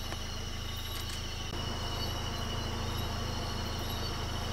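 A vehicle engine idles with a steady low hum that gets a little louder about a second and a half in. Over it runs a steady high-pitched chorus of night insects.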